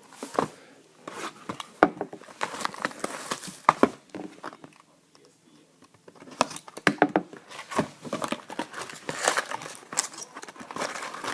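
Plastic wrapping on a box of trading cards being crinkled and torn open, in bursts with sharp clicks and a short pause about four seconds in.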